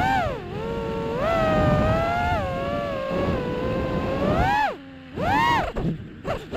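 FPV quadcopter motors whining, the pitch rising and falling with the throttle: a dip about half a second in, a long steady stretch, a sharp drop near five seconds, then several quick throttle blips near the end.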